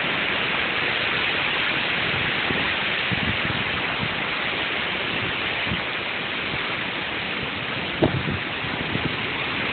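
Waterfall water rushing over rocks: a steady, even hiss. A single brief knock sounds about eight seconds in.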